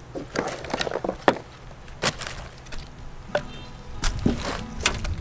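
Chunks of cut firewood clunking against each other as they are lifted from a wheelbarrow and stacked on a woodpile: several sharp wooden knocks, with a short lull about halfway through.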